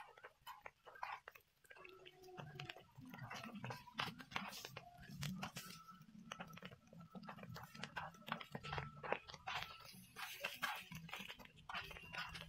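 Slotted spatula and tongs clicking and scraping against a nonstick griddle pan as sliced onions and eggs are stirred and turned, many quick irregular taps.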